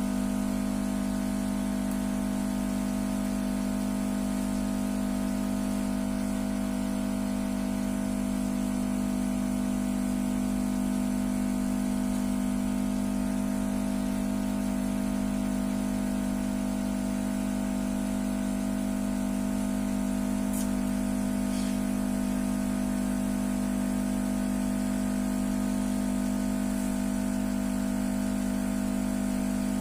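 A steady, unchanging machine hum made of several fixed tones, with its strongest part low in pitch.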